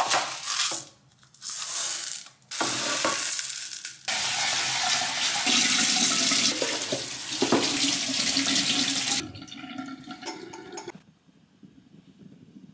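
Dry rice poured from a plastic container into a rice cooker's metal inner pot, then water running at a kitchen sink as the rice is rinsed in the pot and drained. The water stops about nine seconds in, leaving only faint sounds.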